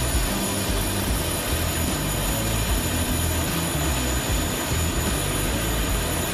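Aircraft engine running steadily: continuous dense noise with a shifting low rumble and thin, steady high-pitched whining tones.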